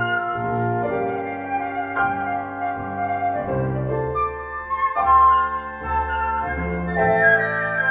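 Two concert flutes playing a lyrical melody in harmony over piano accompaniment, with low piano bass notes changing beneath the held flute notes.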